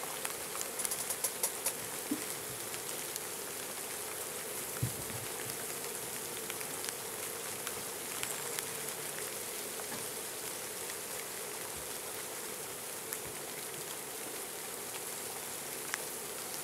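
Honey bees buzzing in a steady hum around an opened, disturbed hive, over a constant hiss of light rain with scattered drop ticks. A few sharp clicks and knocks come in the first two seconds.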